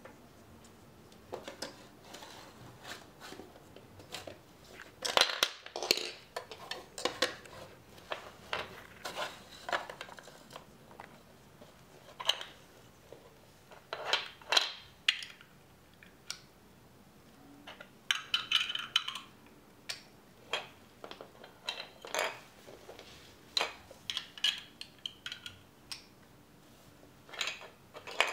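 Plastic LEGO DUPLO bricks clattering and clicking as they are picked through, handled and knocked together and against a wooden floor, in irregular clusters of sharp knocks.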